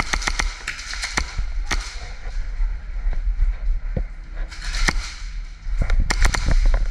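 Airsoft gunfire in a close-quarters game: quick groups of sharp snapping shots and BB hits, the densest burst near the end, over a low rumble of movement.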